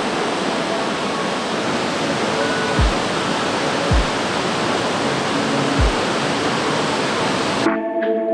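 River rapids rushing in a steady, full white-water roar, with background music underneath. The water sound cuts off abruptly near the end, leaving the music.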